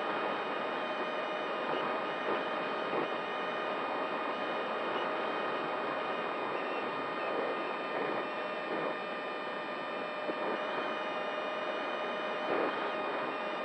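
XK A1200 RC glider in flight, heard through its onboard camera: a steady rush of air with a steady high whine over it.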